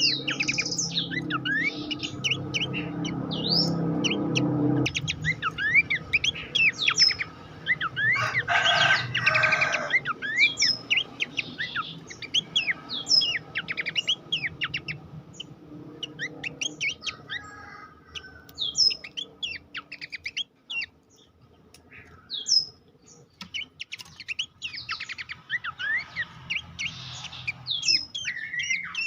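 Pelanduk semak (Horsfield's babbler) song: rapid runs of short whistled chirps and quick up-and-down sweeping notes, with a harsher buzzy burst about nine seconds in. A low rumble underlies the first five seconds, and the calls thin out in the second half, with a brief near-quiet stretch past the middle.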